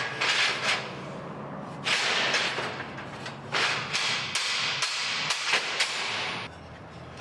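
Slotted steel plates of a fabrication table being worked into each other's slots: metal scraping and sliding, then a string of sharp metal knocks in the second half.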